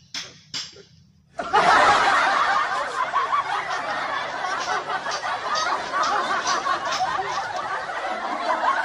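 A crowd of people laughing, many voices at once, starting suddenly about a second and a half in and carrying on steadily.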